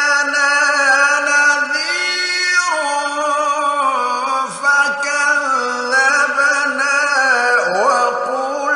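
A man's solo Quran recitation in the melodic mujawwad style: long, drawn-out ornamented notes that slide up and down between the words.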